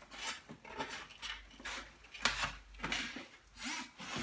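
A string of short rubs and light knocks from a foam RC airplane being handled and tilted on a workbench.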